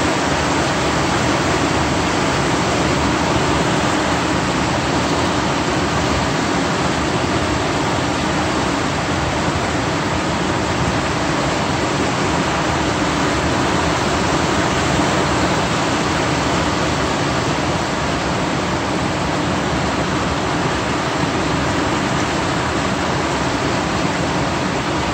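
Steady rush of water pouring down a concrete dam spillway and churning through the river below, a loud unbroken wash of noise.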